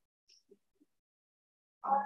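Near silence with a few faint ticks, then a short burst of a person's voice near the end.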